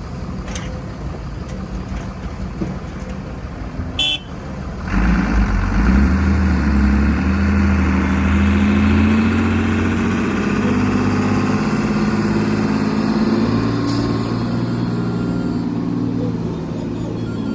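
Heavy diesel earthmoving machinery running, with a short sharp clank about four seconds in, after which the engine is louder and works harder.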